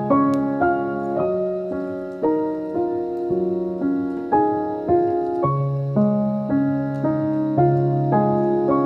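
Background piano music: a slow melody over chords, with notes struck about twice a second and each one ringing on and fading.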